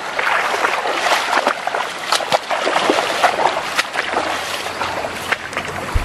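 Water splashing and trickling as a wet cast net is handled, with many small clicks and rustles.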